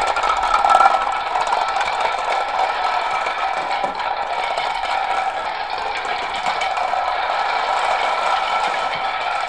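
Plastic ink cartridges toppling one after another like dominoes on a hard floor: a dense, unbroken rattling clatter.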